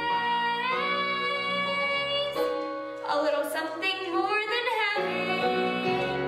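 A young girl singing the closing phrase of a musical-theatre ballad over a sustained instrumental accompaniment. Her voice wavers with vibrato through the middle of the phrase, as the song draws to its end.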